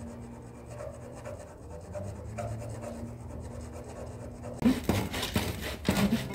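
A loose hacksaw blade held by hand sawing through a water pipe in a cramped space, with faint back-and-forth strokes that become louder and sharper about two-thirds of the way in.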